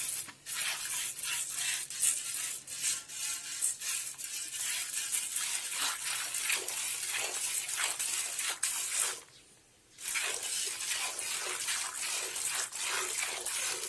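Water splashing in short, irregular spurts over a steady hiss, cut off briefly to near silence about nine seconds in.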